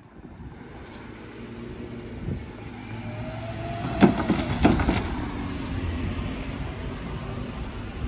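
Cars driving across a railway level crossing, their engines and tyres making a steady hum, with two sharp thumps of tyres going over the rails about halfway through.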